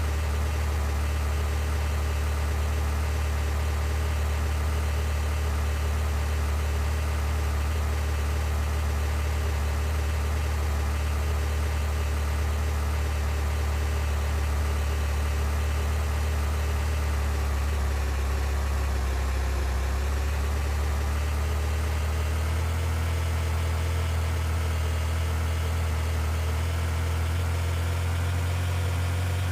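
Car engine running steadily with a low drone, its pitch dipping briefly about two-thirds of the way through and then rising a little.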